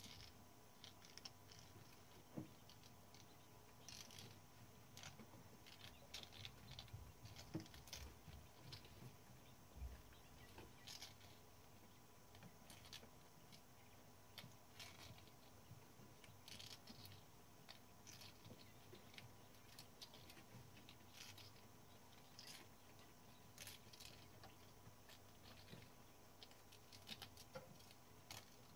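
Faint, irregular small clicks and taps of metal typewriter parts and hand tools being handled during repair.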